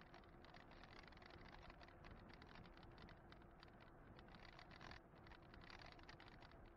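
Very faint ride noise from a forward-facing camera on a moving e-bike: dense, rapid light ticking with a faint steady hum underneath.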